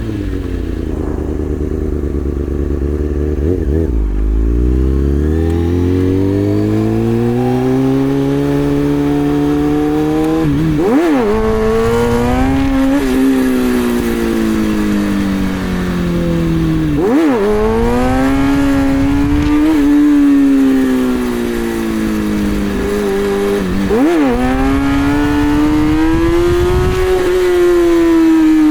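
2003 Kawasaki ZX-6R 636's inline-four engine revving in first gear, its pitch climbing and falling over several seconds at a time, with three sudden brief drops and pickups in revs.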